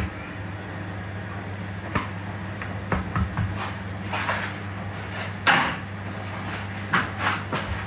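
Several short knocks and clatters of household handling, the loudest about five and a half seconds in, over a steady low hum.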